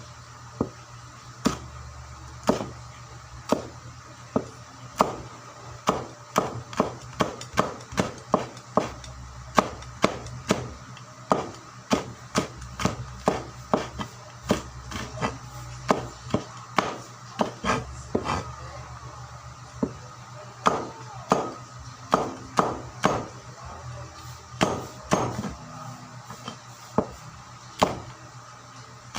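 Knife chopping on a wooden cutting board: sharp, uneven strokes about one or two a second, sometimes in quick pairs, as food is chopped for sisig. A steady low hum runs underneath.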